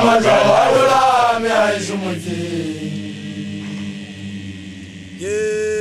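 Sesotho initiation-school song (makoloane chant): a young man's voice calls out loudly, sliding down in pitch over the first two seconds, over low held voices. About five seconds in a new long held note begins.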